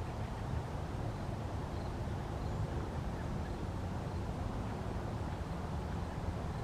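Steady low outdoor background rumble with no clear events, with a few faint, brief high peeps.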